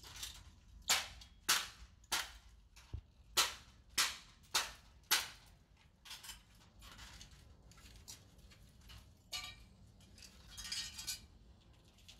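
Sharp cracks and snaps as the parts of a wrecked DJI FPV drone are broken apart, about nine in the first five seconds at a steady pace. After that come softer, scattered crackling and rattling of the broken parts.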